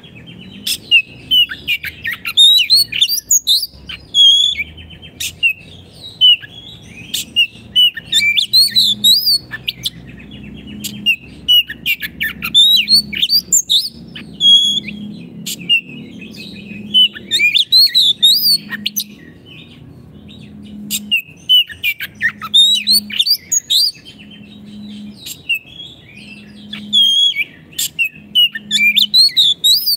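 Oriental magpie-robin (kacer) singing vigorously: a fast, varied song of whistles, chirps and sharp clicking notes, delivered in phrases of a few seconds with short pauses between them.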